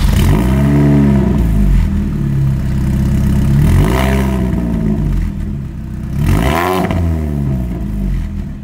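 Freshly rebuilt supercharged four-cylinder engine of a Mini Cooper S R53 revved three times, each rev rising and falling back to idle, then fading out at the end.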